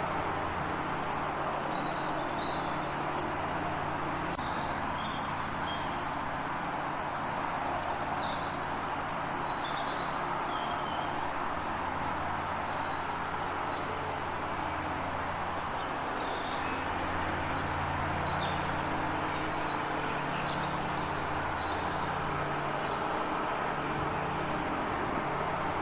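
Small birds chirping in short, high calls scattered throughout, over a steady drone of road traffic with a low engine hum.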